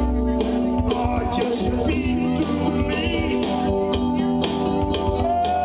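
Live country-rock song played on a keyboard with a guitar sound and a steady beat, mostly instrumental.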